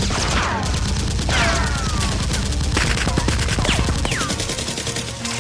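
Rapid automatic gunfire sound effects, a dense run of shots with several falling ricochet-like whistles mixed in.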